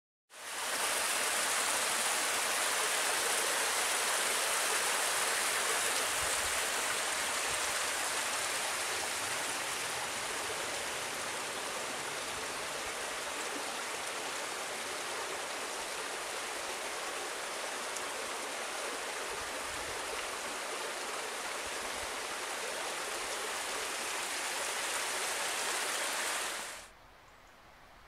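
Steady, toneless rushing hiss, most of it high-pitched. It starts abruptly and cuts off suddenly about a second before the end.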